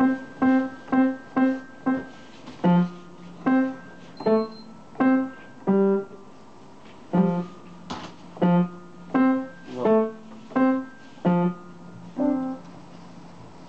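Upright piano played slowly one note at a time: a simple melody in the middle register, opening with the same note struck five times. The tune pauses briefly partway through, then carries on.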